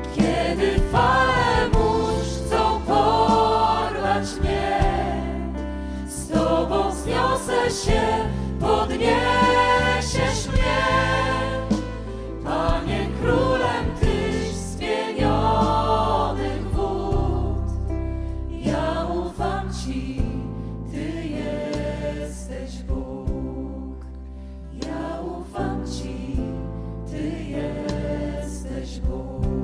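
Worship hymn: voices singing slow phrases with vibrato over held low accompanying notes.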